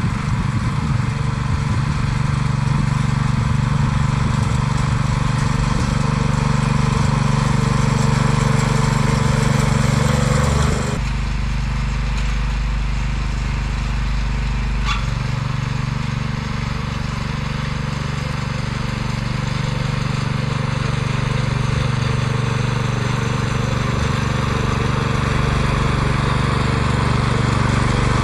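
Petrol engine of a walk-behind motor-cultivator running steadily while it pulls a plough through the soil. Its note changes abruptly about eleven seconds in.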